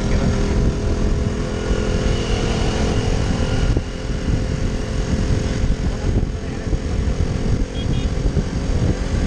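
KTM RC 200 sport motorcycle running steadily at road speed, its engine drone heard under heavy wind rush buffeting a bike-mounted camera's microphone.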